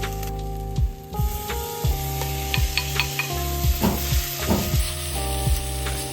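Background music with a steady beat, over food sizzling as it fries in a pan; the sizzle is strongest from about one second in until near the end.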